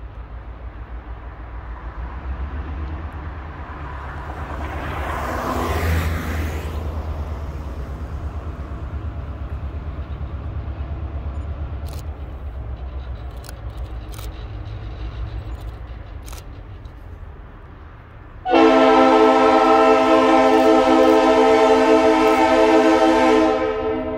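Diesel locomotive approaching with a low engine rumble, with a brief swell of noise about five seconds in. About three-quarters of the way in its multi-chime air horn sounds one loud long blast of about five seconds, and a second blast begins right at the end: the standard horn signal for a grade crossing.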